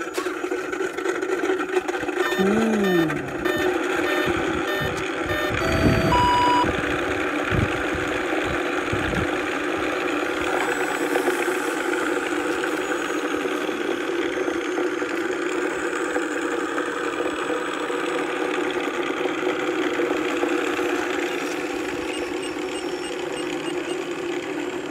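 ESS-Air sound unit in an RC P-47 playing a simulated aircraft engine sound through its speaker, running steadily. A few electronic beeps and several low thumps come within the first ten seconds.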